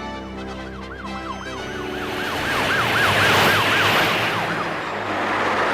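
Cartoon police car sirens wailing in a fast, even up-and-down rise and fall, about three or four cycles a second. Under them a rushing noise swells and then eases as the cars race past.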